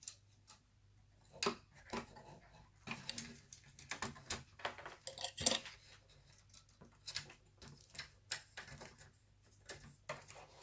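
Scattered clicks and light clattering of plastic and metal parts as a laptop is worked on by hand during disassembly, cables unplugged and a panel pried up.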